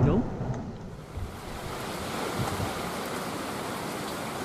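A loud rumble of thunder dies away in the first second. Then a steady rush of a heavy rainstorm: rain and strong wind through tall grass, with wind buffeting the microphone.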